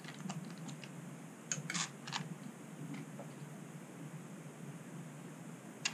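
Faint handling clicks and light clinks of small metal washers being hung on a servo-operated drop latch. The loudest cluster of clicks comes about one and a half to two seconds in, with a few scattered ticks after.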